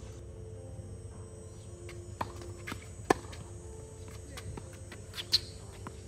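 Tennis ball hits on a hard court: sharp pops of racket strikes and ball bounces. A few come about two to three seconds in, the loudest near three seconds, and two quick ones follow just after five seconds, over a steady low hum.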